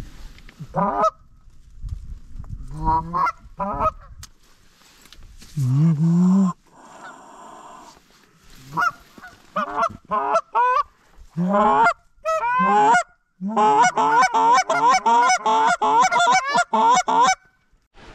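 Canada goose-style honks and clucks: scattered single honks, a long low moan, then a fast run of clucks at about three a second near the end.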